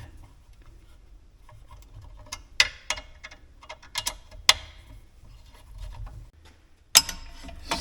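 6mm Allen wrench and bolts clicking and tapping against the metal of a belt and disc sander as the work support is bolted on: a handful of scattered sharp clicks over several seconds.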